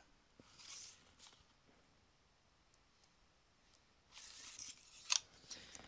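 Very quiet room tone with two faint soft hissy noises and a couple of small clicks near the end.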